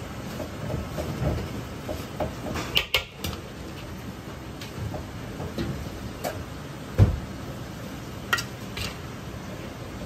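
Metal ladle scooping fried rice from a wok and pressing it into shape on a ceramic plate: soft scrapes and scattered clinks of metal on wok and plate, with a heavier knock about seven seconds in, over a steady background noise.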